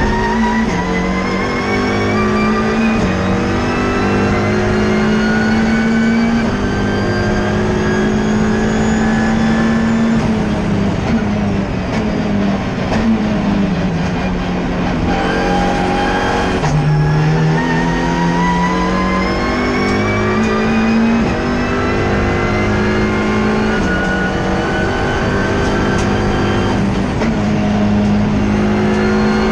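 Turbocharged Ford EcoBoost race-car engine heard from inside the cockpit under hard acceleration on track, the revs climbing in long pulls and falling away several times before building again.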